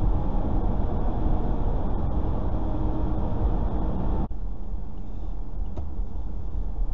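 Road noise heard inside a car's cabin while driving on a snowy, slushy highway: a steady rumble of tyres and engine. About four seconds in it cuts off abruptly to a quieter, duller cabin hum.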